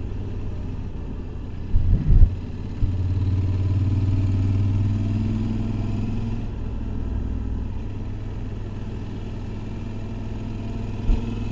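Motorcycle engine running at road speed with low wind rumble on the rider's camera microphone. A couple of low thumps come about two seconds in, then the engine gets louder for a few seconds before settling back to a steady cruise.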